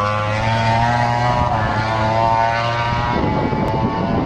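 An engine running steadily at a constant pitch. After about three seconds it turns rougher and noisier.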